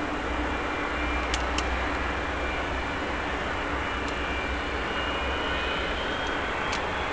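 Jet engines of a taxiing DC-9-family airliner running steadily at low power, with a faint high whine that rises slightly near the end.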